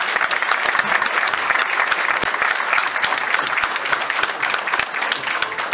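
Audience applauding: many pairs of hands clapping together in a dense, steady patter.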